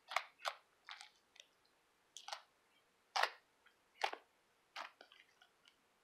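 Clicky slime being worked by hand, giving an uneven string of sharp, wet clicks and pops, about eight in all. The loudest comes about three seconds in, and fainter small ticks follow near the end.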